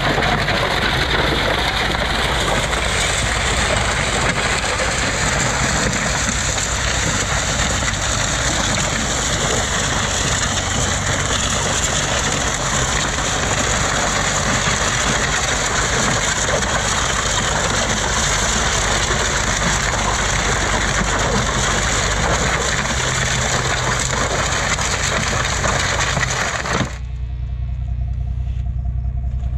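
A steel Ford Ranger hood loaded with a big-block 440 engine being dragged by a chain over dirt and gravel: a continuous loud scraping, with a vehicle engine running low underneath. The scraping stops suddenly about three seconds before the end, leaving only the low engine sound.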